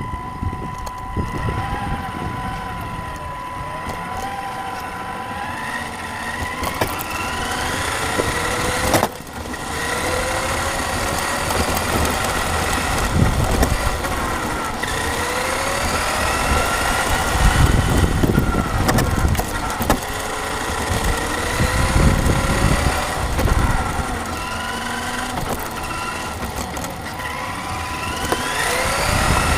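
The motor of a radio-controlled model runs under changing throttle, its whine gliding up and down in pitch over and over. A steady high tone sits underneath, and heavy low rumbling comes in about halfway through and again a few seconds later.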